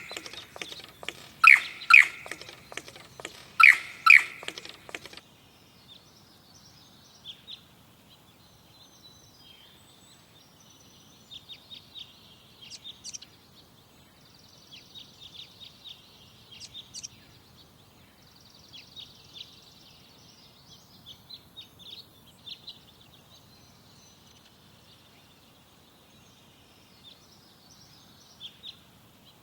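Lyrebird song: loud, repeated calls in pairs for the first five seconds or so, then an abrupt change to quieter, scattered high chirps and twitters.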